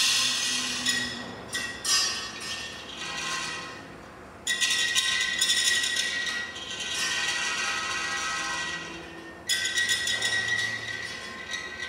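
Bent steel wire on a wind-driven kinetic sculpture scraping and rattling on a concrete floor in irregular bursts, with a ringing metallic tone. The bursts start suddenly about four and a half and nine and a half seconds in.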